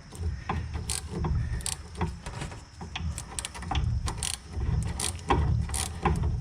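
Hand ratcheting wrench working a 17 mm nut on a rear sway bar link, its pawl clicking in short back-and-forth strokes, with sharp metallic clicks about twice a second.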